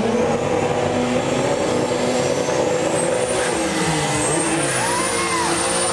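Drag-race engines running hard at high revs down the strip, the Toyota 2RZ four-cylinder of a Tacoma against a Supra's 2JZ-GTE straight-six. A thin high whistle rises and falls through the middle.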